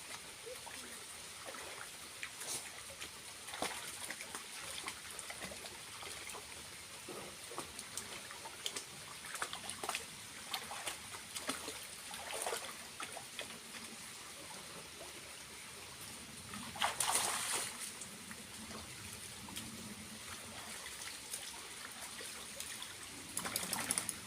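Water trickling from a small waterfall, with irregular splashes throughout and a louder burst of splashing about two-thirds of the way in and again near the end.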